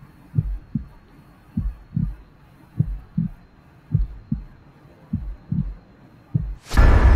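Heartbeat sound effect in a horror soundtrack: a slow, steady heartbeat of low double thumps a little over once a second. Near the end a sudden loud crash cuts in and rings on, the start of a jump-scare sting into scary music.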